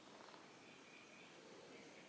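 Faint bird calls, a few short chirps, over a steady low hiss of near-silent room ambience.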